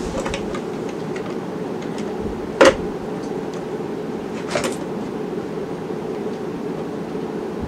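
A screwdriver working the rear screws of a Sony Mega Watchman's plastic case: a few scattered clicks and knocks, the sharpest about two and a half seconds in, over a steady low hum.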